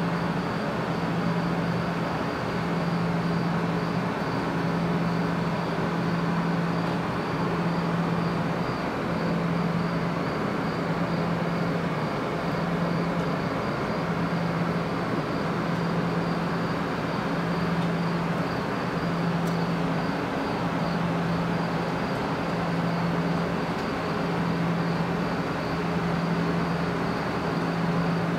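Steady mechanical drone, with a low hum that swells and fades about every two seconds.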